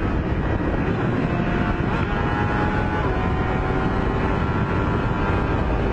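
Motorcycle at highway speed: heavy wind rush on the microphone covers a faint, steady engine note.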